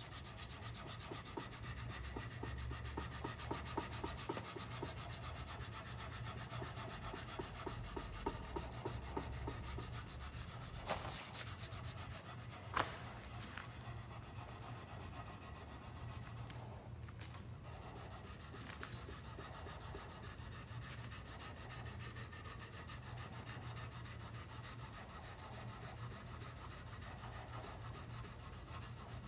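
Sandpaper being rubbed back and forth over the cured epoxy hot coat on the edge of a carbon-fibre rigger, in repeated rasping strokes. There is a single sharp tap about 13 seconds in and a brief pause around 17 seconds.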